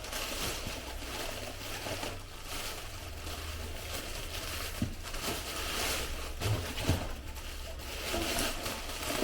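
Rustling and handling noise as items are moved and unwrapped, with a few soft knocks around the middle, over a low steady hum.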